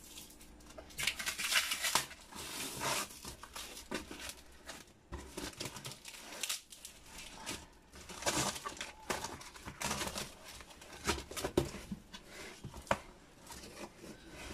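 Cardboard packaging and plastic tape being pulled, crinkled and torn open by hand, in irregular rustling bursts.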